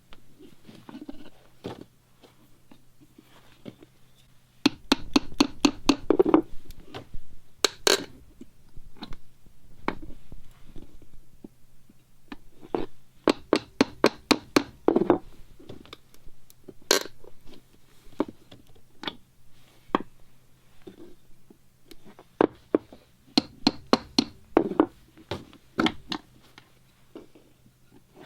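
Rapid runs of sharp taps and knocks, several a second, from metal upholstery teardown tools worked against a wooden chair frame to remove staples and tacks. There are three longer runs, with single louder strikes between them.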